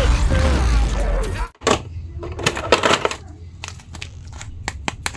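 Film soundtrack with heavy bass, cut off abruptly about a second and a half in. Then irregular light clicks and taps from a plastic Batman action figure being handled.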